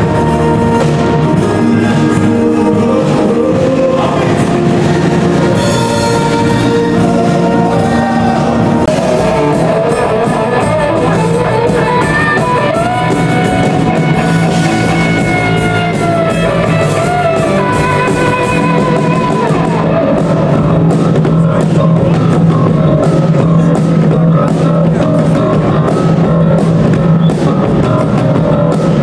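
Rock music with drums and guitar, including a bending melodic line partway through.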